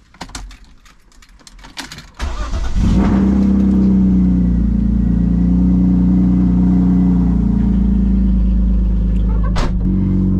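Cold start of a 1999 BMW E36 328i's 2.8-litre straight-six: a few clicks, then about two seconds in the starter cranks briefly and the engine catches and settles into a steady idle. A sharp click comes near the end.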